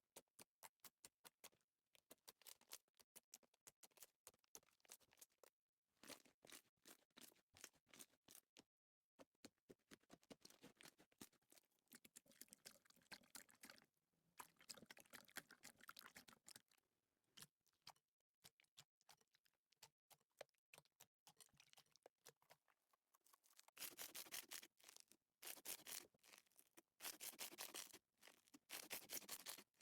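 Hands working slime: a quiet run of rapid sticky clicks and pops, with louder wet crackling squishes near the end.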